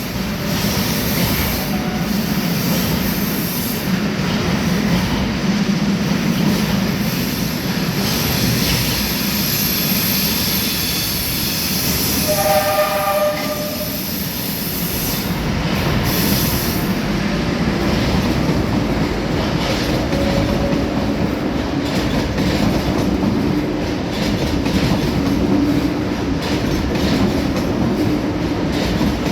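Train running through a station with a steady rumble and wheel-on-rail noise. A high-pitched wheel squeal is heard through the first half. A brief horn sounds about a third of the way in.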